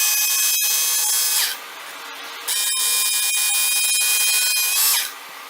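Work Sharp Knife & Tool Sharpener's motorized 220-grit sanding belt grinding a knife blade in two passes, one on each side, each a loud grinding hiss about two seconds long. Between the passes, and after the second, the sharpener runs on more quietly.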